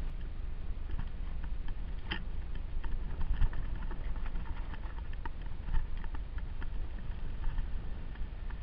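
Mountain bike rolling along a stony forest trail, heard from a camera on the bike or rider: a steady wind and ride rumble with irregular clicks and rattles from the tyres on stones and the bike's loose parts, and a few louder knocks.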